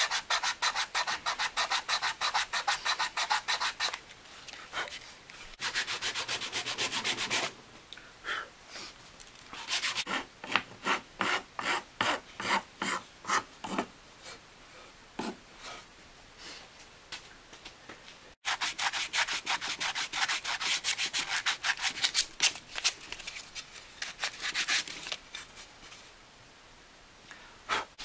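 Hand file scraping back and forth across small wooden pieces, in runs of quick, even strokes broken by short pauses, with a slower stretch of separate strokes in the middle.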